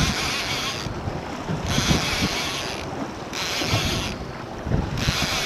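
Fishing reel whirring in short bursts about once a second as a rod is worked against a hooked yellowtail kingfish, over wind buffeting the microphone.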